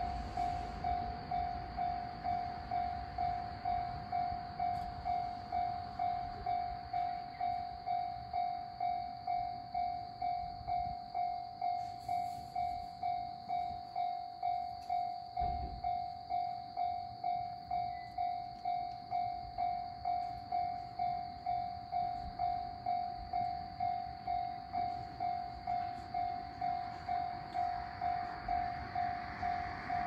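Japanese level-crossing warning bell ringing in an even, steady rhythm of about one and a half single-tone rings a second. Near the end a broad rushing noise builds, consistent with a train approaching the crossing.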